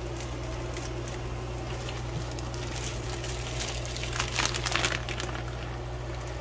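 Plastic bag and thin plastic glove crinkling as udon noodles are handled out of the bag, loudest about four to five seconds in, over a steady low hum.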